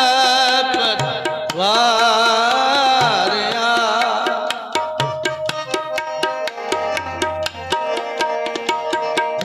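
Sikh shabad kirtan: a male voice draws out long, ornamented notes over harmonium and tabla for the first few seconds, then gives way to an instrumental passage of harmonium chords and a steady tabla rhythm.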